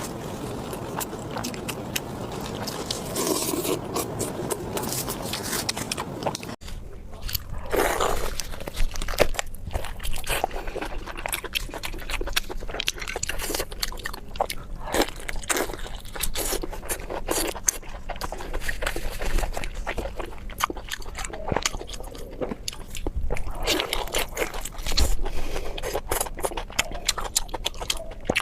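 Close-miked eating sounds: crisp crunching bites and wet chewing, a quick run of sharp crackling crunches. The sound cuts off abruptly about six and a half seconds in before the crunching resumes.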